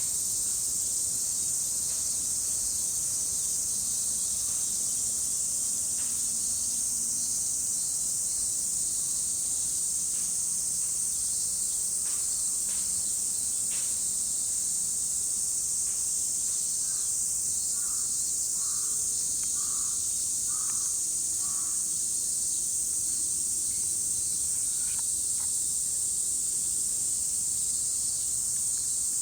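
A dense chorus of many cicadas shrilling together in one steady high-pitched drone. Partway through, six short, evenly spaced calls from another animal sound over it.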